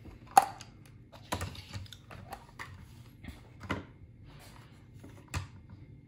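Small plastic eyelash and makeup brush washing machine being handled: a handful of sharp plastic clicks and knocks, the loudest about half a second in, with a few rustles between.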